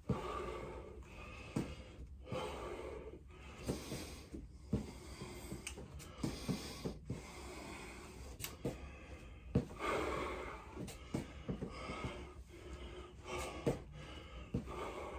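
A man breathing hard between reps of lunges while he has a cold in his throat and lungs, with a few short knocks scattered through.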